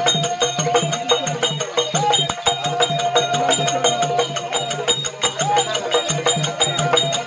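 Therukoothu accompaniment music: a drum keeps a fast, even beat of about four strokes a second, with sharp metallic clicks. Over it runs a held melody line that bends up at the ends of phrases, above a steady drone.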